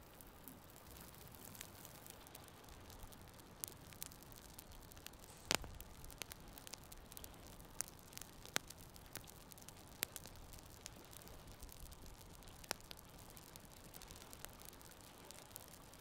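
Small campfire of split kindling crackling, with sharp pops every second or two, the loudest about five and a half seconds in, over a faint steady hiss.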